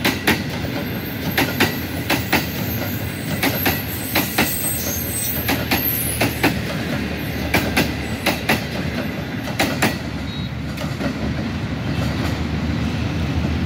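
Pakistan Railways Green Line express passenger coaches running past close by: a steady rumble with the wheels clicking over rail joints in quick pairs, the clicks thinning out near the end as the last coach goes by.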